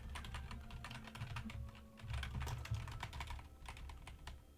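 Typing on a computer keyboard: quick runs of keystrokes, with a brief pause about two seconds in, thinning out near the end.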